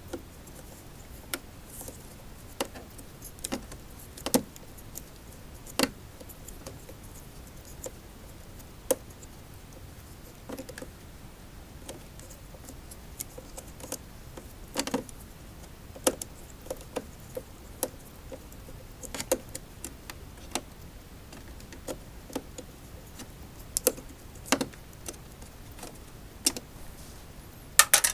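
Irregular clicks and clinks of small metal parts and hand tools being handled while an Inmotion V5F electric unicycle is taken apart, with a cluster of louder clicks near the end.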